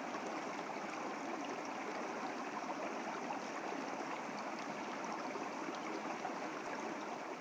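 A steady rushing noise, even throughout, with no distinct knocks, tones or voices in it.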